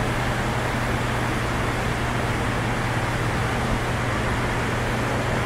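Underground metro station ambience: a steady, even rushing noise with a constant low hum underneath.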